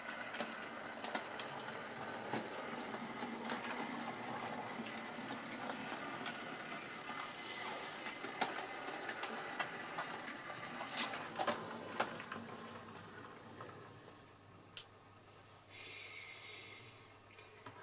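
Model railway train running along the track: a steady mechanical whir with many small clicks from wheels crossing rail joints, fading after about 13 seconds. A brief hiss comes near the end.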